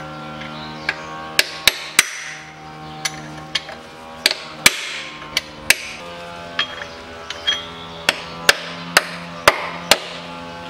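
Hammer blows on a steel drift driven into the worn rubber-metal bushing (silent block) of a Peugeot 407's lower engine mount, loosening the old bushing for removal. There are about fifteen sharp metallic strikes at irregular intervals, and soft background music plays underneath.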